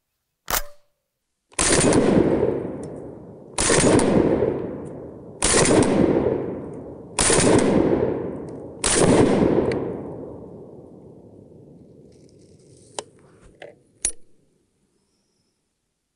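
Panzer BP-12 semi-automatic 12-gauge bullpup shotgun fired five times, a shot roughly every two seconds, each report echoing away over a second or more. A few light clicks follow near the end.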